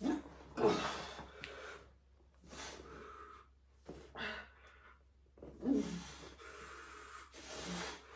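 A man breathing hard under exertion: irregular sharp exhales and quick inhales, some with a short strained voice sound, as he works through a heavy set.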